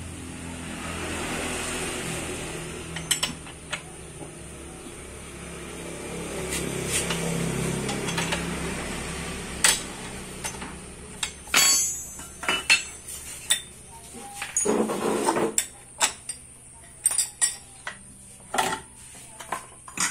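Metal tools and scooter CVT parts clinking and clanking as a spanner works the drive pulley nut and the pulleys and belt of a Honda Vario 125 are taken off, with many sharp separate clanks in the second half. A steady low hum runs through the first half.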